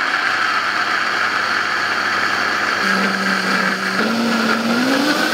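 Countertop blender running at high speed, blending soaked chickpeas and water into a paste. A steady whir, with the motor's pitch stepping up in the second half.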